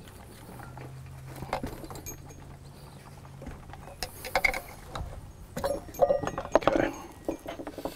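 Screwdriver prying the dust seal out of a Suzuki GSX-R750 rear wheel hub: metal scraping and small clicks against the seal and hub. A run of louder clicks and scrapes comes about halfway through, as the seal levers free.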